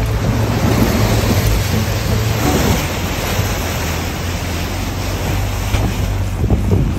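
Water rushing and splashing against the body of an off-road 4x4 as it fords a river, a steady wash with the engine's low hum underneath.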